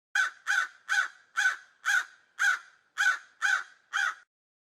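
A crow cawing nine times in a steady series, about two caws a second.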